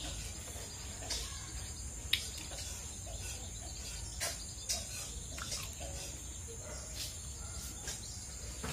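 Steady high-pitched buzzing of insects such as crickets, with irregular soft clicks and smacks of ripe mango slices being bitten and chewed.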